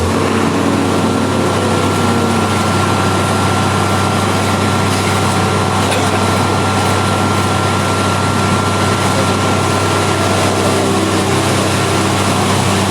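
An engine running steadily: a constant low hum with a faint, steady high tone above it.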